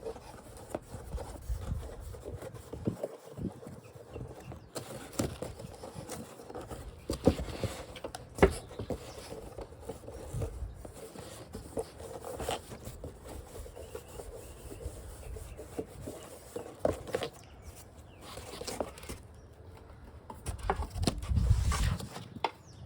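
Hands unpacking and handling a wall clock and its packaging: rubbing and rustling, with scattered short clicks and knocks throughout and a louder stretch of handling near the end.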